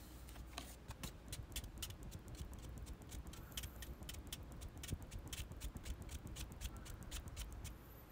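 A run of quick, light taps or clicks, irregular, several a second, that stops shortly before the end, over a low steady hum.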